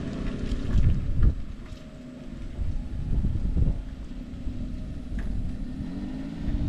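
Small cab-over mini truck's engine running as it drives past, its note rising near the end as it picks up speed, with wind buffeting the microphone.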